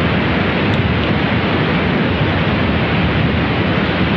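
Steady, loud noise of a heavy downpour with wind buffeting the microphone, even throughout with no distinct crack or bang.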